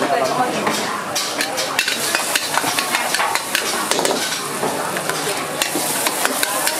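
Minced garlic and rice sizzling in hot oil in a wok, with a metal spatula repeatedly scraping and clattering against the wok as it stirs.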